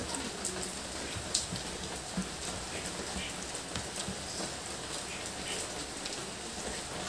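A person eating egg curry and rice with their fingers: wet chewing and mouth smacks, heard as scattered soft clicks over a steady background hiss.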